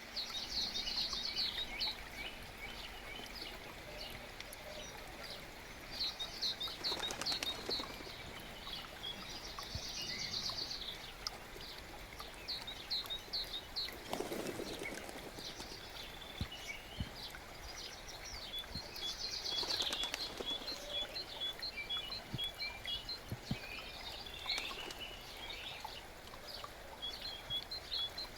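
Songbirds singing over the steady murmur of a forest brook: repeated trilled phrases, with a run of short evenly spaced chirps in the second half.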